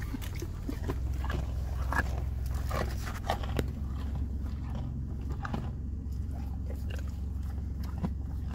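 An elk crunching and chewing a carrot at an open car window: a run of crisp bites and crunches, thickest in the first few seconds, over a steady low hum from the car.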